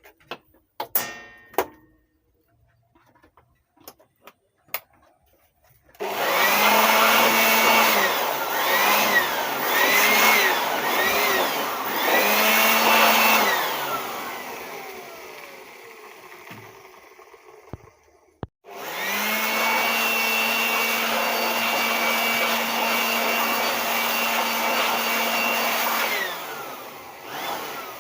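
Electric blower motor switched on in several short bursts, each spinning up and dropping back, then running steadily for about seven seconds before winding down: dust being blown out of an amplifier chassis during cleaning.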